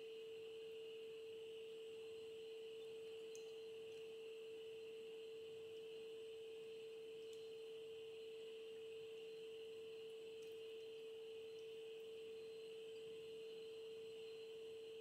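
A faint, steady, single-pitched hum with a fainter high whine above it, holding constant throughout.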